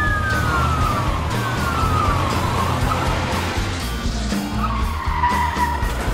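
Police siren wails falling in pitch, three times, with a hiss like skidding tyres under them, over background music with a steady low beat.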